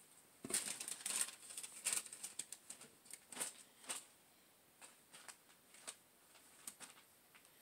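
Faint crinkling and clicking of paper and cardboard packaging being handled, a quick flurry of sharp crackles in the first few seconds, then only a few scattered ones.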